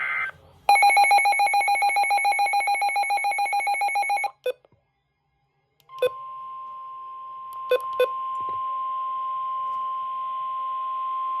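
An electronic alarm beeps in rapid pulses for about three and a half seconds. After a gap and a few clicks, the long steady single-pitch warning alarm tone of a NOAA Weather Radio / EAS broadcast begins about six seconds in and holds through the end, announcing a new severe thunderstorm warning.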